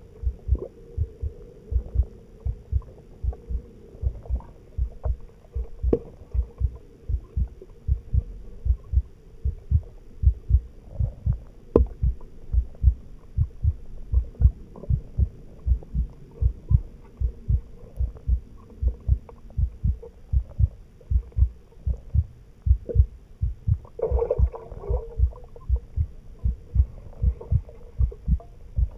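Heartbeat thumping steadily at a regular pace over a faint low hum, with a brief noisier patch about five seconds before the end.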